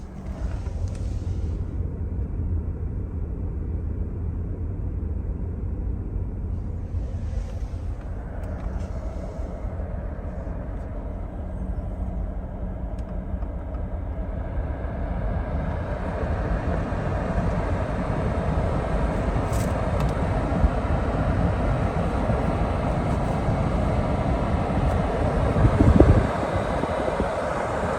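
Toyota Land Cruiser 300 on the move: steady low road and engine noise that grows louder and fuller from about halfway through, with a brief louder bump near the end.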